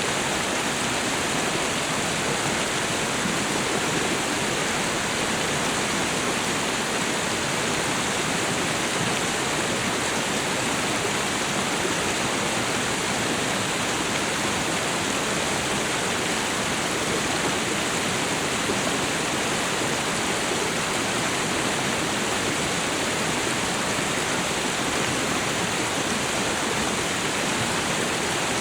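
Tropical waterfall and river: a steady, even rush of falling and flowing water.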